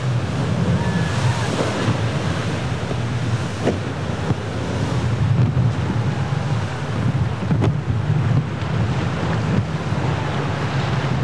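Rough surf and boat wakes churning and breaking, with steady wind buffeting the microphone.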